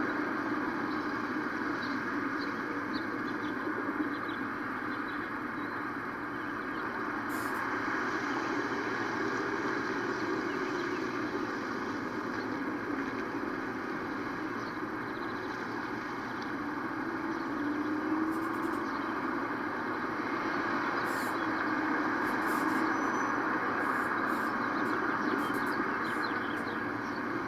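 Steady road traffic noise from cars and pickup trucks driving through a street intersection.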